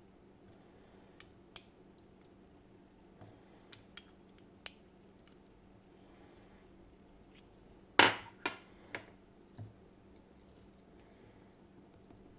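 Small metal lock parts and tools being handled while a dimple lock is taken apart: scattered light clicks and taps, then a sharp metallic clatter about eight seconds in followed by three smaller knocks.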